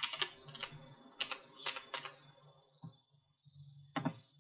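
Computer keyboard keys being typed, a run of quick irregular clicks that thins out after about two seconds, with one last keystroke near the end.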